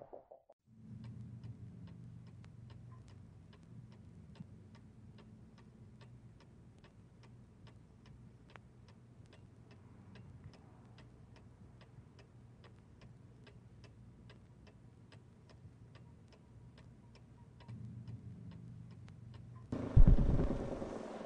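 A clock ticking evenly, about two ticks a second, over a low steady hum. Loud music cuts in near the end.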